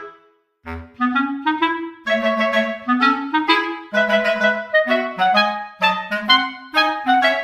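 Background music: a lively melody of short, detached notes on a woodwind instrument, with a brief pause about half a second in.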